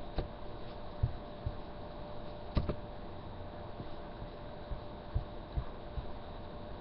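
Steady electrical hum with scattered soft knocks and a few sharp clicks, typical of a computer mouse being clicked and handled on a desk.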